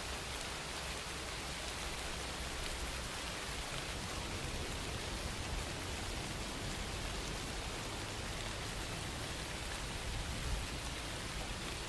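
Steady rain falling, an even hiss with a patter of drops on surfaces and one slightly louder drop-like tick about ten seconds in.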